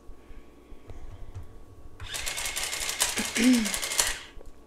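Keys of a Casio desk calculator being punched in a quick run of clicks, a few scattered taps first and then a dense burst of keypresses about two seconds in, as a subtraction is worked out.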